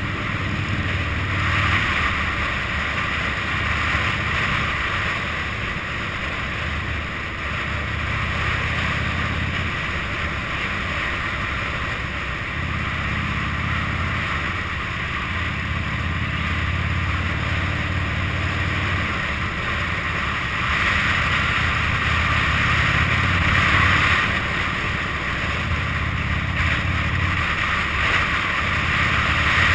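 Cruiser motorcycle's engine running at road speed, a low rumble under steady wind noise on the microphone; the wind hiss grows louder about two-thirds of the way in.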